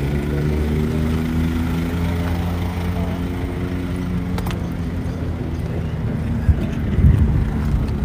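A passing engine drone whose pitch sinks slowly over several seconds, with a heavier low rumble near the end.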